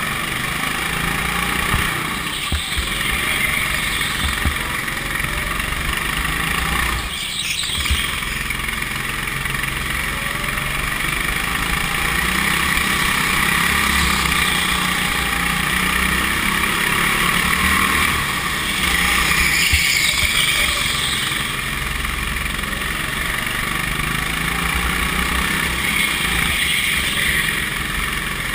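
Go-kart engine running steadily under throttle through a lap, its pitch rising and falling with the corners. The sound cuts out briefly about seven seconds in.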